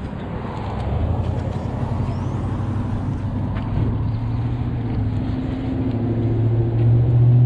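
An engine hums at a steady pitch and grows louder toward the end, over a rough low rumble.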